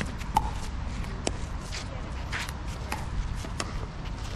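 Pickleball paddles striking the hollow plastic ball during a rally: a string of sharp pops, roughly one every half second to a second, over a low background rumble.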